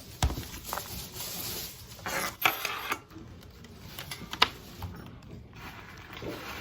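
Scattered clicks and knocks, with a short rustling noise about two seconds in and a sharp click a little past four seconds.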